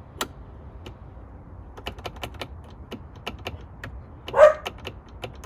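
Plastic window switch on a 2010 Hyundai Genesis coupe's door panel clicked repeatedly, in quick runs of presses, with no window motor running: the new switch has not cured the dead driver's window, which the owner puts down to the motor, the regulator or the wiring. About four and a half seconds in there is one short, loud vocal burst.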